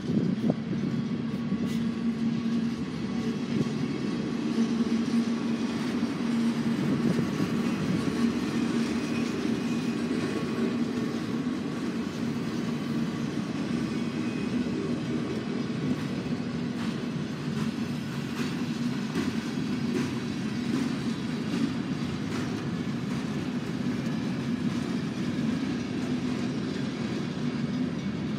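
Freight cars of a long train rolling steadily past on the rails: a continuous rumble of steel wheels with a low hum and scattered light clicks.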